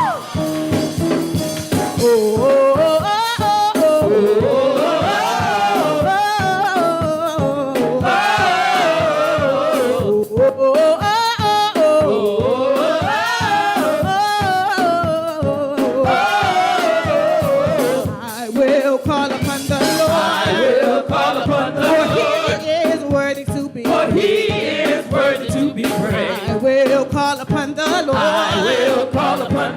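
Gospel praise singing by a vocal group over live band accompaniment with drums, the voices gliding through long, ornamented lines.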